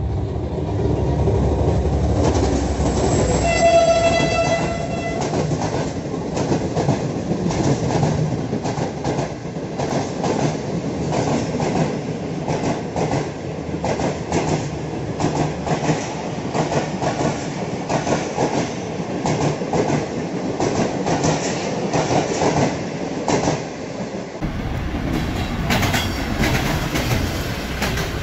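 Pakistan Railways Greenline Express train passing at speed: one horn blast lasting under two seconds about three seconds in, then the rapid clickety-clack of coach wheels over rail joints. Near the end the sound cuts to another express train passing, with wheel noise.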